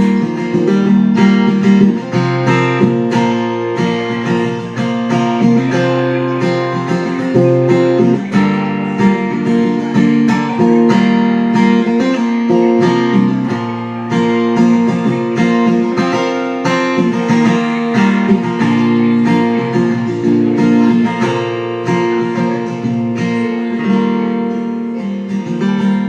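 Acoustic guitar strummed and picked in an instrumental break of a country-style song, with no singing.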